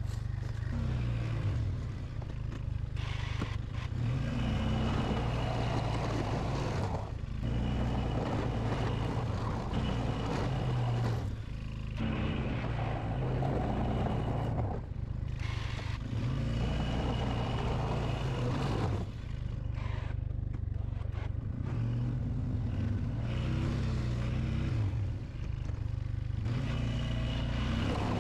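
1997 Polaris Sportsman 500 ATV engine (a four-stroke single) running under load while pushing a snow plow, its pitch rising and falling in surges a few seconds apart as the throttle comes on and off. The plow blade scrapes over snow and pavement along with it.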